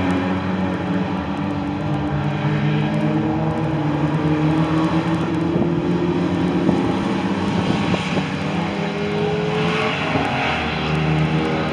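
Saloon stock car engines running together in a race, a steady drone of several engines whose pitch shifts a little as the cars lap.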